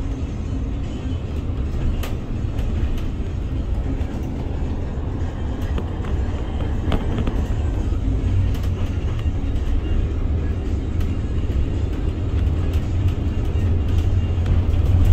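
Low, steady rumble of a city bus's engine and tyres heard from inside the cabin, growing a little louder near the end.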